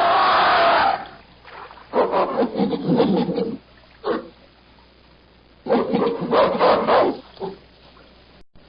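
Gorilla sounds, the chest-beating kind the sound effect is named for: a loud burst at the start, then two longer bursts with fine rapid beats, about two and six seconds in, each followed by a short one.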